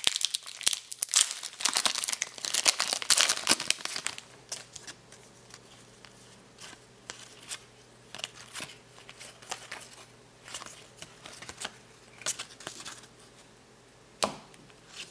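Foil wrapper of an NBA Hoops trading-card pack crinkling and tearing as it is pulled open, loud for the first few seconds. After that come quieter scattered clicks and rustles of the cards being slid and flipped through by hand, with one sharper click near the end.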